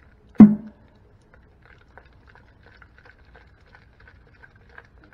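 One sharp knock with a short ring about half a second in, as the vacuum pump's metal oil-reservoir housing bumps the stainless-steel sink. It is followed by faint, scattered light ticking and patter of soapy hot water swirled around inside the housing.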